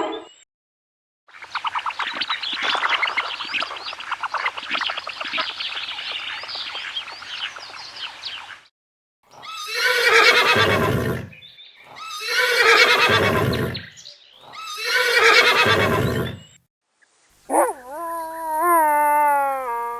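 A run of animal calls: a long, rough, trembling call lasting several seconds, then three loud calls of about two seconds each, and near the end a higher call with a clear, wavering pitch.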